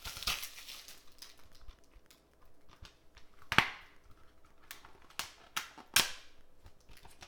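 Sharp plastic snaps and clicks of a 4K UHD Blu-ray keepcase being opened and handled. The two loudest snaps come about three and a half and six seconds in.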